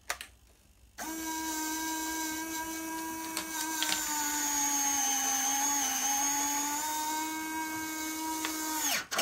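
Electron electric retract actuator on a 1:5 scale Viggen main landing gear whining steadily as it drives the gear leg down. It starts about a second in, dips slightly in pitch midway under load with a couple of clicks, and cuts off suddenly at the end of travel.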